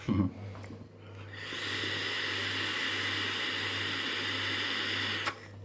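A steady hiss starting about a second in and cutting off suddenly about four seconds later, over a constant low electrical hum.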